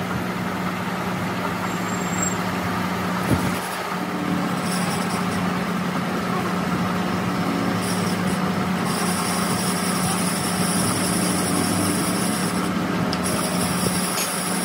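Metal lathe running with a Suzuki three-cylinder engine's camshaft spinning in the chuck: a steady motor hum, with a single sharp knock about three seconds in. A high-pitched whine joins the hum at about eight seconds and holds to the end.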